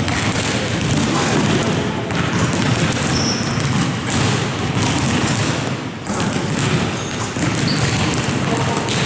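Many basketballs being dribbled at once on a hardwood gym floor, a steady jumble of overlapping bounces and thuds.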